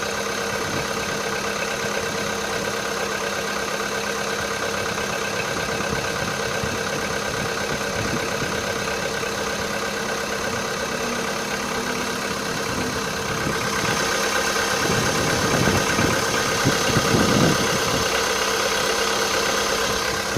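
Volkswagen Jetta's CFNA 1.6-litre four-cylinder petrol engine idling cold; the owner is listening for a knock that he cannot make out for certain when the engine is cold. The running gets louder about two-thirds of the way through.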